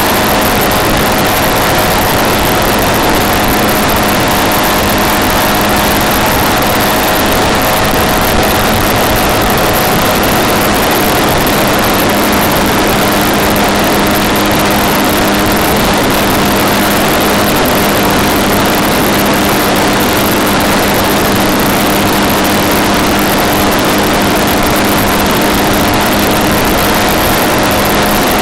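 Vehicle driving at a steady pace on newly fitted tyres being scrubbed in: a steady engine drone holding one pitch over loud, even road and tyre noise.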